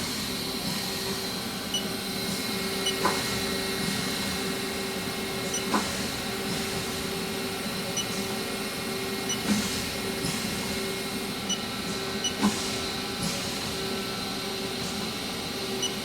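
Haas ST-15 CNC lathe spindle running steadily at 3,000 RPM, a constant mechanical hum with a thin high whine over it. A few short clicks come every few seconds.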